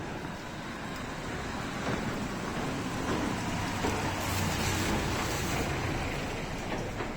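A car passing on a wet, snowy street: its tyre and engine noise swells for a few seconds, peaking about halfway through, then fades.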